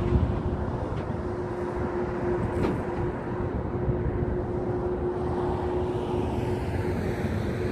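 Steady outdoor rumble of engine-like noise, heaviest in the low end, with a faint steady hum running through it.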